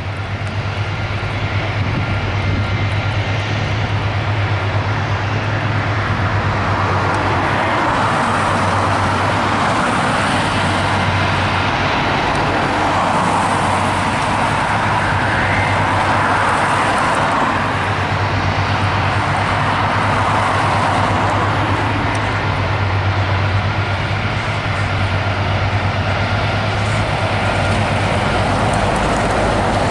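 Airbus A320-214's jet engines running at take-off power, a loud steady rush that swells about seven seconds in, over a steady low hum.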